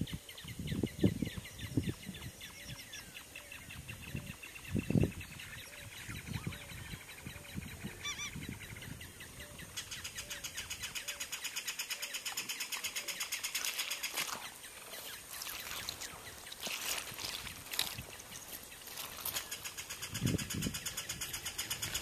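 Ringed kingfisher calling: a loud, fast rattle about ten seconds in that lasts some four seconds, followed by separate harsh notes. A few low thumps on the microphone are heard near the start and near the end.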